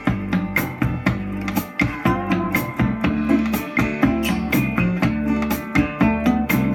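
Rock music with drums, bass and guitar played back through a pair of Philips FX55/12 mini-system speakers driven by a NAD C315BEE amplifier, heard in the room. The drums keep a steady beat of about two hits a second.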